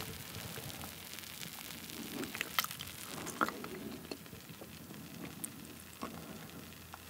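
Freshly poured beer fizzing in a glass, its foam head crackling with many small pops.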